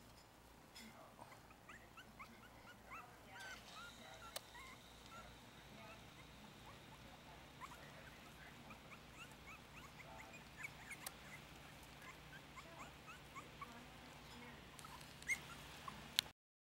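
Four-week-old Yorkshire terrier puppies squeaking and whimpering softly over a food dish: many short, high squeaks, with a few sharp clicks that are loudest near the end.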